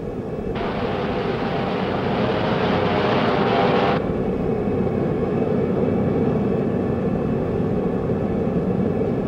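F-14 Tomcat jet engines running steadily, joined about half a second in by a burst from its M61A1 Vulcan 20 mm rotary cannon: one continuous rapid-fire buzz lasting about three and a half seconds that cuts off sharply.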